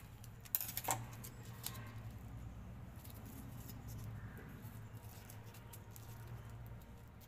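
Glitter paper handled and pressed into place by hand: a few sharp clicks about half a second to a second in, then soft rustling and ticks, over a steady low hum.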